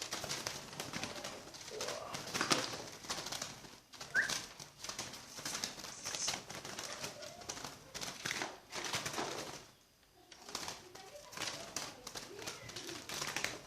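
Birds calling, with one short rising chirp about four seconds in, among many clicks and rustles of a bird being handled.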